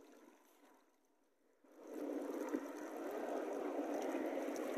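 Almost silent for the first couple of seconds, then steady sloshing and splashing of shallow lake water as people wade through it.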